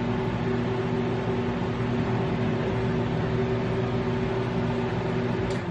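Microwave oven running with a steady electrical hum, shutting off right at the end.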